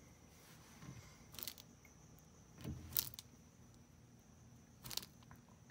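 Black rough-necked monitor lizard feeding on a rat: faint, scattered crunches and clicks, with three louder ones about a second and a half, three and five seconds in, over a faint steady high tone.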